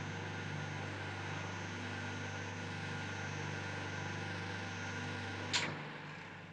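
Steady electrical hum of a large electromagnet, a film sound effect. A sharp click comes about five and a half seconds in, after which the hum fades away.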